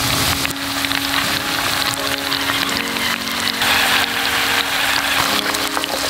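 Beef short ribs deep-frying in hot oil in a cast-iron pot: a steady, dense crackle and sizzle of bubbling oil.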